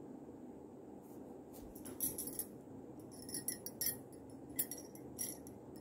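A spatula scraping and clinking against a stainless steel pan as raw chicken pieces are stirred into the masala, a quick run of scrapes from about two seconds in until near the end. A steady low hum runs underneath.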